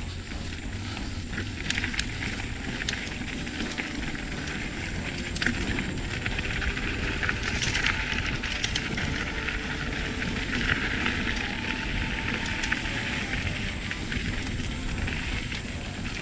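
Mountain bike riding over a rough dirt trail: a steady crackle of tyres on loose ground, with many small clicks and rattles.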